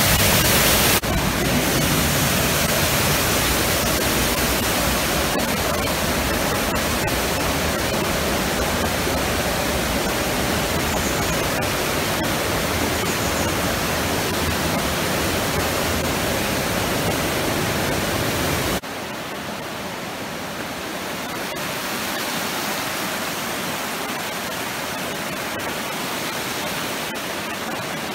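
Steady rushing noise at a fairly loud level. It changes abruptly about a second in and drops quieter about two-thirds of the way through.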